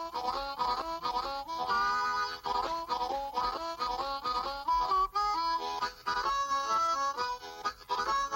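Instrumental music: a lively melody of short, quickly changing notes on a reed-like wind instrument.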